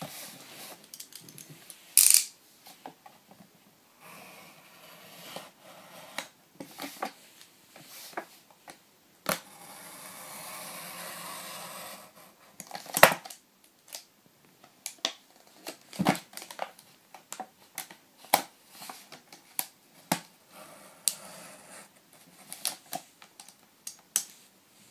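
Plastic blister pack and card backing of a Carddass Rolling Battle being handled and worked open by hand: scattered clicks, taps and crinkles of plastic, with a steady scraping for a couple of seconds midway and two sharp clacks, about two seconds in and about thirteen seconds in.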